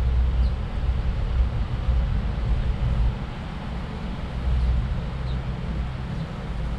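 City street ambience: a steady low rumble with an even background hiss, louder for the first three seconds and then easing a little.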